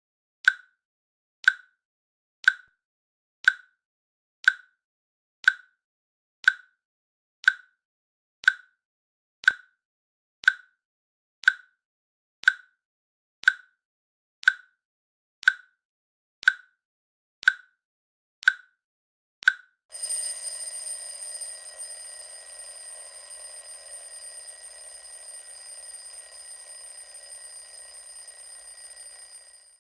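Countdown timer clicks, one sharp click each second, about twenty in a row. Then the timer's alarm goes off at zero: a steady, high ringing of several tones that starts loud and fades slightly over its last ten seconds.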